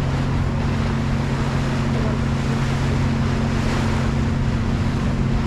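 Passenger ferry's engine running steadily with a low, even hum, under a constant rush of water and wind.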